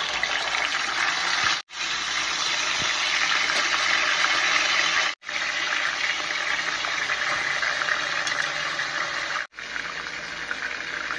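Marinated pork belly slices sizzling loudly in hot oil in a frying pan, a steady hiss that cuts out briefly three times.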